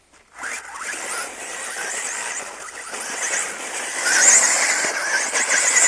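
Electric whine of an ECX Torment RC short-course truck's 4000kv brushless motor as the truck drives off over loose dirt, with gritty tyre noise; the whine wavers in pitch with the throttle and gets louder about four seconds in.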